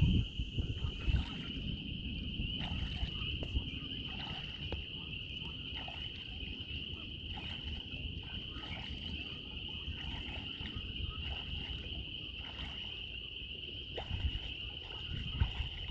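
A steady, high-pitched chorus of frogs over a low rumble, with the light, scattered splashing of Canada geese bathing in the pond.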